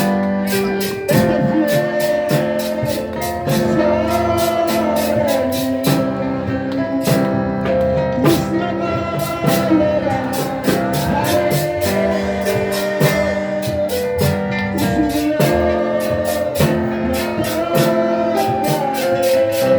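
Christian revival music: a voice singing over guitar, keyboard and a drum kit keeping a steady beat.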